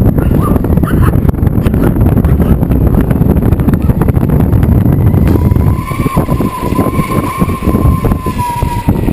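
Wind buffeting the microphone and the rumble of wheels rolling over rough asphalt while riding. About halfway through, a steady high motor whine comes in and drops slightly in pitch near the end.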